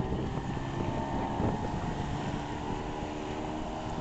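Small outboard motor on a 10 ft mini power boat running at speed across the water, with a steady engine note.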